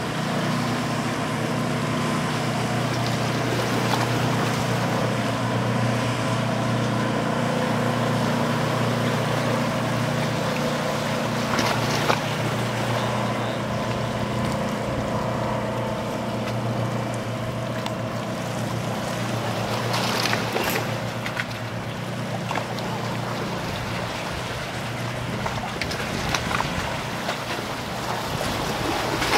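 Engines of a passing charter fishing boat, a steady low drone with several held tones, over the rush of its bow wake and the waves.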